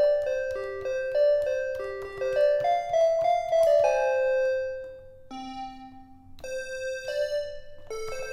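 EASYPLAY 1s pocket keyboard playing a melody in one of its built-in piano-like sound presets. A quick run of single notes ends on a held note that fades about four seconds in, then a quieter passage follows before a new phrase starts near the end.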